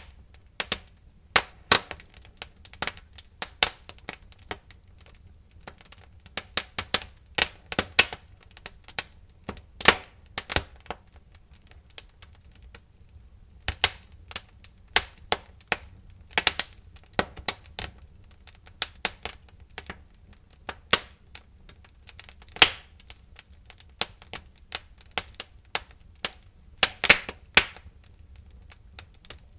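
Wood fire crackling in a fireplace: irregular sharp pops and snaps, some much louder than the rest, over a faint low rumble.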